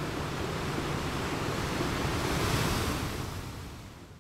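Ocean waves washing: a rushing surf sound that swells to a peak about two and a half seconds in, then fades away near the end.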